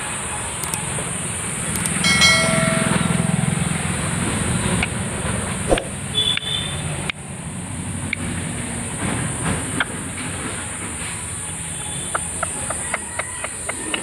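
Outdoor background: a steady high-pitched drone throughout, under a low rumble that swells about two seconds in. A brief horn-like tone sounds over it, a short high chirp comes about six seconds in, and a few soft clicks follow near the end.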